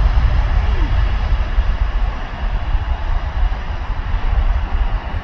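Airbus A380's jet engines passing low overhead: a loud, deep rumble of engine noise that eases off slightly after about two seconds.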